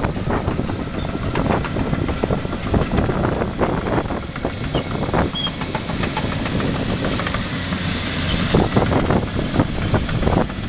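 Caterpillar 325D tracked excavator driving over loose soil to compact it: its diesel engine runs under a dense clatter of steel crawler tracks, with many irregular clanks throughout.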